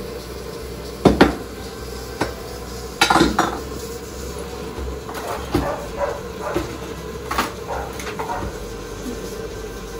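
Kitchen utensils and cookware clinking and knocking. A sharp clatter comes about a second in, a louder cluster around three seconds, then a string of lighter knocks at roughly half-second intervals.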